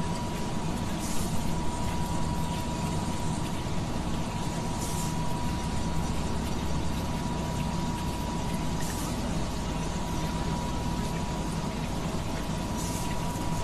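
Steady hum of industrial machinery with a constant high tone, broken by a short hiss about every four seconds.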